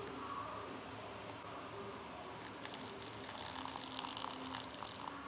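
A thin stream of water poured into a steel mixer-grinder jar full of dried red chillies and whole spices, splashing and hissing against the metal. It starts about two seconds in and runs for roughly three seconds.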